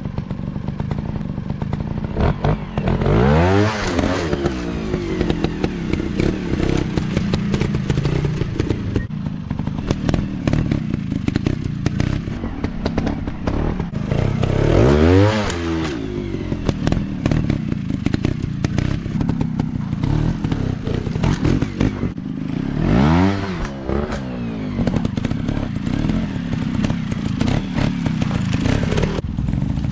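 Trail dirt bike engines running throughout, with the engine pitch rising and falling back about four times as the bikes rev or pass.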